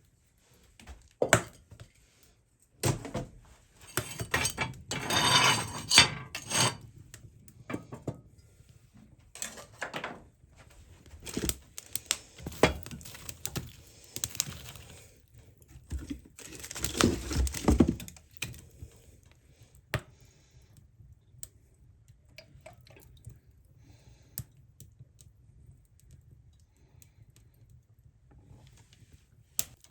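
Kitchen work: dishes and utensils knocking and clattering at irregular moments, with two longer stretches of scraping or rustling.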